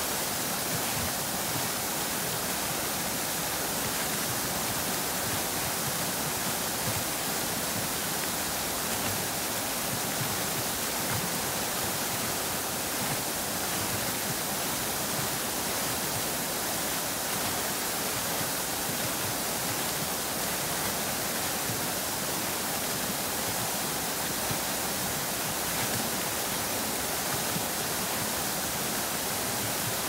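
Several fountain jets splashing down into a pool: a steady, even rushing hiss of falling water that does not change.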